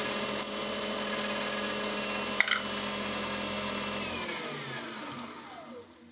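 Metal lathe running with its spindle turning, as a parting tool cuts through a black POM (acetal) workpiece: a steady motor whine with one sharp click about two and a half seconds in. About four seconds in the lathe is switched off, and its whine falls in pitch as the spindle coasts down.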